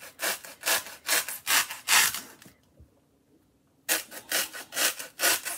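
Kitchen knife sawing back and forth through a foam pool noodle, about three strokes a second, in two runs with a pause of about a second between them.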